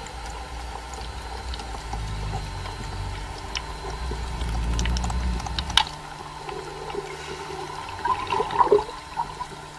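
Water heard through an underwater camera as a freediver ascends: a low rushing rumble with a few sharp clicks, then gurgling splashes at the surface about eight seconds in.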